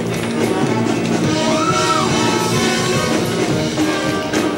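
Show choir's live band playing a loud, dense passage, with a held note that swoops up and back down about two seconds in and drum hits near the end.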